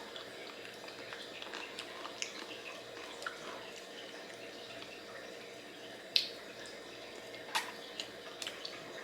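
Quiet mouth sounds of a person eating a mini ice cream cone: a few scattered short clicks and smacks, the loudest about six seconds in.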